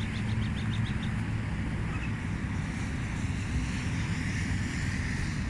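Wind rumbling on the microphone on a dusty, windy day, over a steady wash of road traffic. A brief run of faint high ticks comes about the first second.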